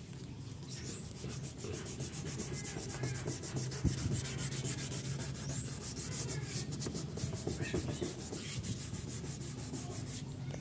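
400-grit wet sandpaper rubbed by hand over a scooter's grey ABS plastic body panel in fast, even back-and-forth strokes. It is the final smoothing pass that takes the white crust off the aged plastic.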